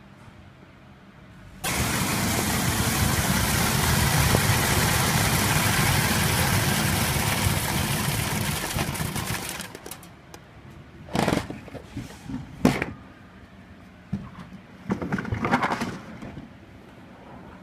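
Coffee bean color sorting machine starting up about two seconds in: a sudden loud, steady rush of beans streaming through its feeder and chutes with the machine running, which tails off after about eight seconds. After it come a few short knocks and rattles as the plastic collection bin of sorted beans is handled.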